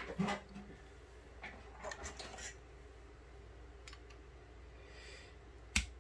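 Small screwdriver tip scraping and tapping against a metal lightsaber hilt and its electronics chassis, pushed in to work the chassis loose: a few faint scrapes and light taps, then one sharp click near the end.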